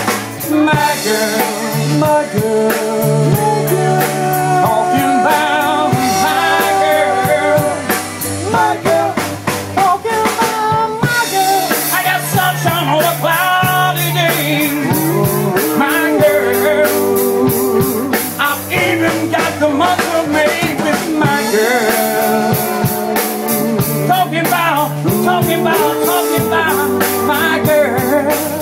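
Live band playing a rock song: electric and acoustic guitars over a drum kit with rimshots, and a man singing.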